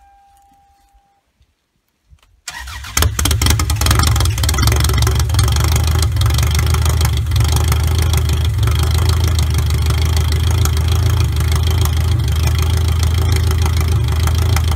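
Cold start of a high-mileage Toyota Camry demolition derby car: the engine catches about two and a half seconds in and then runs loud and steady. Its exhaust exits through an open pipe straight up through the hood.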